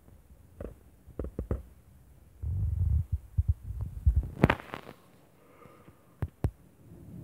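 Raindrops striking a windowpane in a storm: scattered dull knocks against the glass, a short low rumble a couple of seconds in, then a quick cluster of knocks, and two more near the end.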